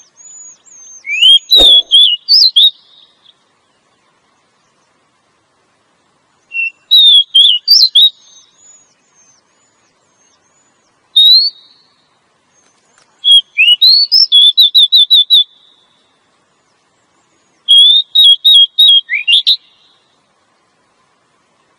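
Female Oriental magpie-robin (kacer) calling in five short bursts of quick, high whistled notes with silent gaps of a few seconds between them. This is the female call used to lure male magpie-robins into singing. A single sharp click comes about one and a half seconds in.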